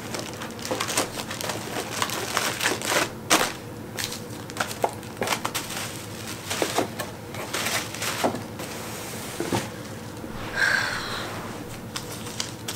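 Paper coupons and plastic-wrapped sample packages being gathered up by hand: irregular rustling and crinkling with light taps and clicks, and a short higher-pitched sound near the end.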